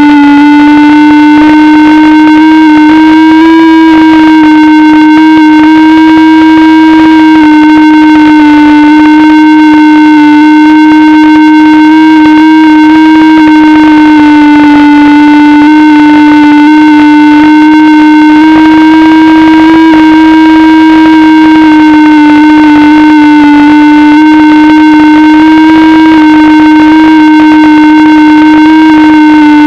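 FPV aircraft's electric motor and propeller running at steady throttle, picked up by the onboard camera. It is one loud droning tone with harmonics, its pitch wavering slightly up and down.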